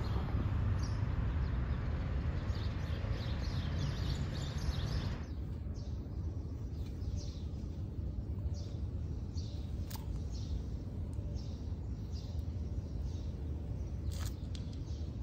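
Small birds chirping, short high chirps repeating every half second or so, over a steady low rumble. The rumble drops and thins about five seconds in.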